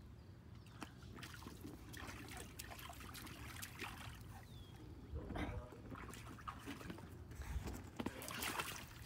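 Faint sloshing and trickling of shallow water in an inflatable paddling pool, stirred by a child's hand and feet, with scattered small splashes.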